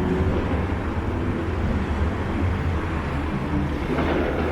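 Steady outdoor city-street noise with a constant low rumble, like distant traffic.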